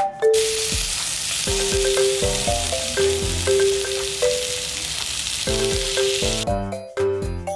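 Gopchang (grilled intestines) sizzling on a hot metal grill pan, a dense crackling hiss that cuts off about six and a half seconds in. Light background music plays over it.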